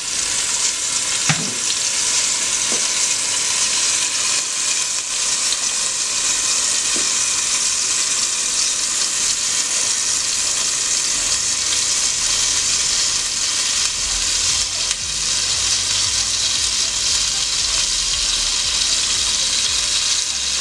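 Blended roasted-tomato and guajillo chile salsa frying in hot oil as it drips through a strainer into the pan: a steady sizzle.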